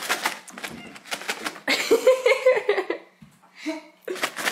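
A person laughing in quick breathy bursts, with a longer voiced, wavering stretch of laughter in the middle.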